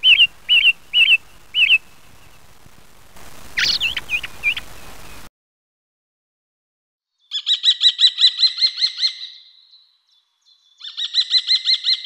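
Bird calls edited together: four short evenly spaced chirps over a light hiss, then a few quick gliding notes. After a pause of silence come two rapid trills of fast repeated notes.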